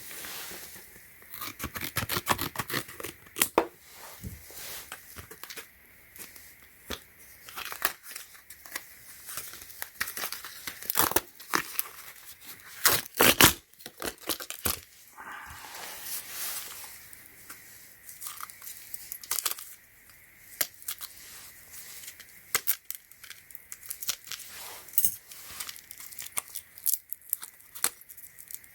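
Packaging being torn open and crinkled by hand: irregular crackles, rips and small clicks of plastic and paper.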